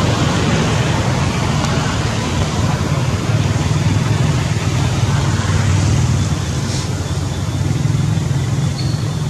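Steady low hum of a running motor over a constant hiss.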